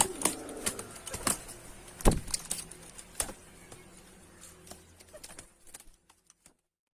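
Irregular clicks, taps and knocks, the loudest about two seconds in, with a faint pigeon coo at the start.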